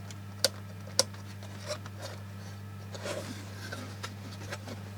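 Sharp clicks and taps from a small home-built electronics kit being handled: three distinct clicks in the first second, then softer ticks and a brief rustle about three seconds in, over a steady low electrical hum.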